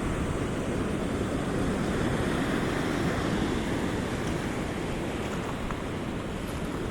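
Pacific Ocean surf washing up over a pebbly beach, a steady rushing wash that swells slightly a couple of seconds in.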